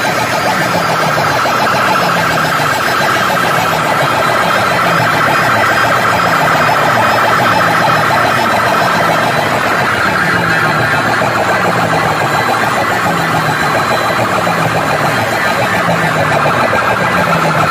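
Very loud electronic competition track blasting from DJ sound-box speaker stacks, with a falling bass note repeating about once a second under a dense, wavering electronic tone.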